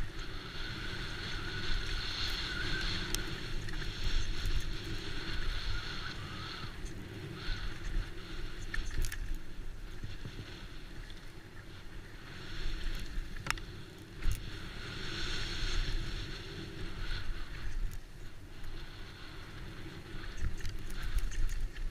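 Trek Slash mountain bike on a trail ride: wind buffeting the microphone over tyre rumble, with scattered sharp clicks and rattles from the bike.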